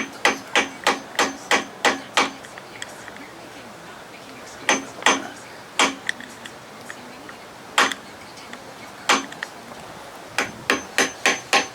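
Small hammer tapping a tool against a broken head cover bolt in a 1979 Evinrude 55 hp outboard, chipping around the bolt's edges to work it loose. The blows come in quick runs of sharp metallic taps, about three or four a second, with pauses and a few single taps in between; some leave a faint ring. The bolt is being mangled rather than freed.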